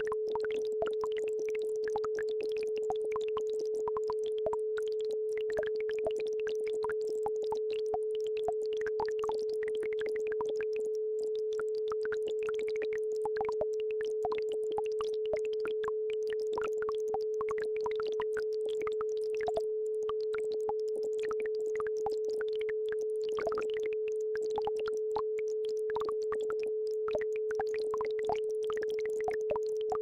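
Steady electronic isochronic-tone track: a single mid-pitched tone held without a break, with faint babbling brook water beneath it.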